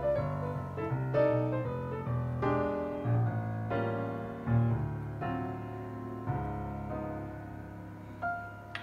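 Background piano music: a gentle run of single notes over a low held bass.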